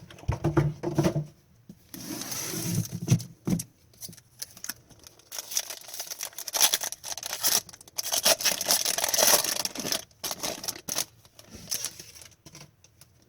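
Hockey card packs being torn open, the wrappers crinkling and tearing, with cards rustling and flicking against each other in irregular short bursts.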